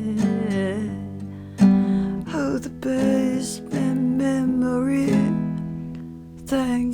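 Acoustic guitar being strummed, a few chord strokes each left to ring, with no lyrics sung.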